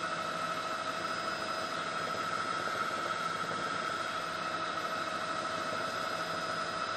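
A steady mechanical hum with constant hiss, unchanging throughout.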